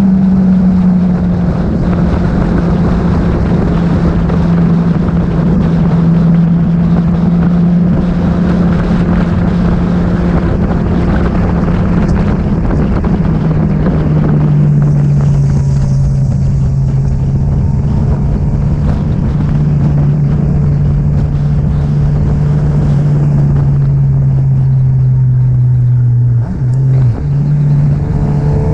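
Motor vehicle engine running at road speed, with wind rushing over the microphone. The engine note slowly falls as the vehicle eases off, breaks briefly near the end, then starts to rise again.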